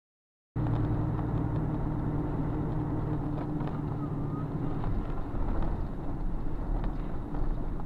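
A car driving: steady engine and road noise that starts abruptly about half a second in, with a few faint clicks.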